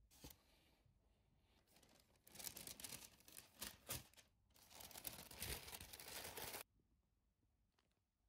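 Packing paper rustling and crinkling as it is unwrapped and folded back, in two spells of about two seconds each, stopping suddenly near the end.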